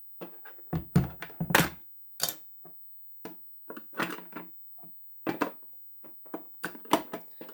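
Irregular sharp plastic clicks and knocks from batteries being fitted into a SureFeed Microchip Pet Feeder as the unit is handled, with a heavier thump about a second in.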